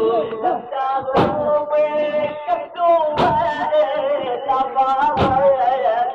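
Male voices chanting an Arabic religious elegy in long, wavering melodic lines, with a heavy thump on the beat three times, about two seconds apart.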